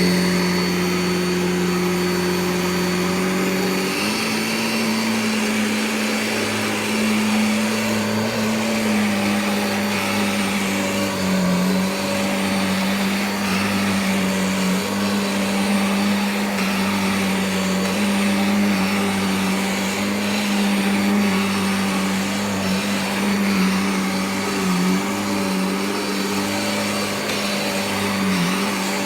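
Vacuum cleaner running steadily. Its motor tone steps up slightly in pitch about four seconds in, then holds with a few brief dips as the load on it shifts.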